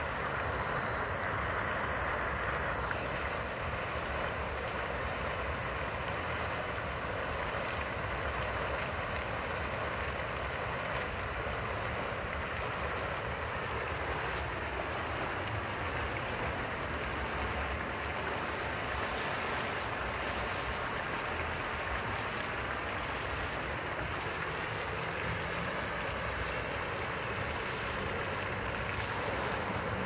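Public fountain's water jets spraying and splashing down into the basin: a steady, even rush of falling water.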